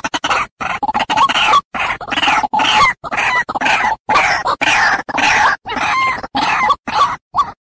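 White-breasted waterhen calling: a fast, unbroken run of short, harsh call notes, about three to four a second. It is the ruak-ruak lure call used to draw waterhens in for trapping.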